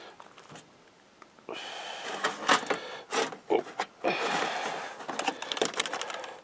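An aluminium foil pie plate and plastic wrap crinkling and crackling as raw liver is packed into the foil plate by hand. The sound starts about a second and a half in, with several sharp crackles.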